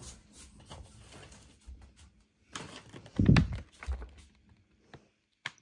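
Rustling and handling noises as a plastic bag of dog treats is grabbed and held up, with a loud thump a little over three seconds in and a short sharp click near the end.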